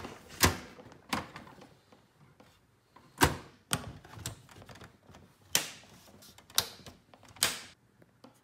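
Plastic and sheet-metal parts of an HP small-form-factor desktop case clicking into place, the optical drive and case being fitted together by hand. About eight sharp clicks and knocks come at irregular intervals, the loudest a little past three seconds in.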